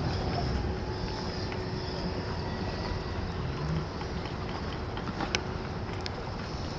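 Steady rumble and hiss of a boat running on the water, with a faint steady hum and a single sharp click about five seconds in.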